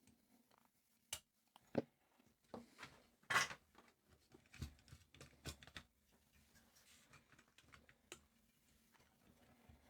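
Faint scattered clicks and light taps with one short scrape a little over three seconds in: small tools and radio parts being handled on a workbench.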